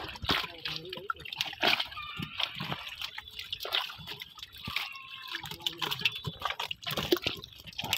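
Irregular small splashes, sloshes and drips of water as hands pick live fish out of a net holding shallow water and drop them into a tub. Faint voices come in now and then.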